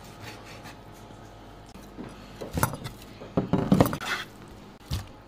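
A few irregular clinks and knocks of kitchenware, with a cluster of them a little after the middle and a single knock near the end, during meat preparation.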